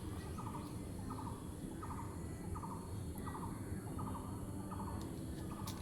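An animal calling in a steady rhythm: short rattling pulses repeated evenly about every two-thirds of a second, over a low steady background rumble.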